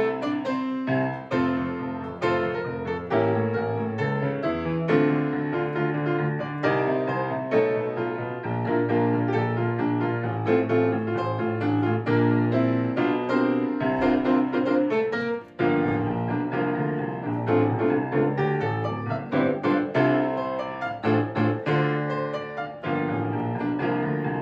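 Solo grand piano played in a busy, full-keyboard arrangement, with a short break about fifteen seconds in before the playing resumes.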